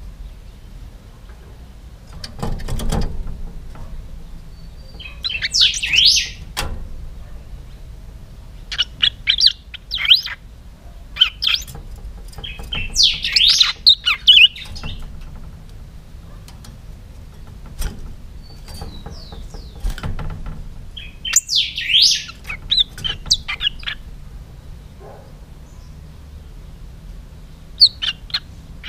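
Caged picahueso songbird singing: short loud phrases of quick, sweeping whistled notes, repeated every few seconds with pauses between.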